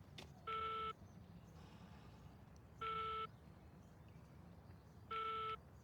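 Telephone line tone heard through a phone's earpiece: three short, identical beeps about two and a third seconds apart, the tone thin and cut off above the phone band.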